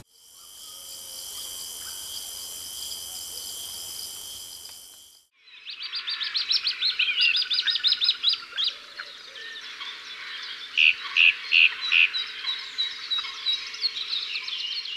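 Steady high-pitched trill of night insects for about five seconds. After a brief gap, birds chirp and sing in a dawn chorus, with fast runs of repeated notes and three loud calls near the end.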